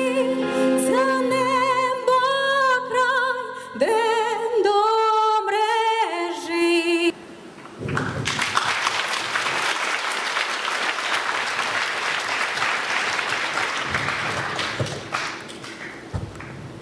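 A woman sings over musical accompaniment, with a strong vibrato on her held notes, and the song ends abruptly about seven seconds in. A moment later the audience applauds for several seconds, and the applause fades out.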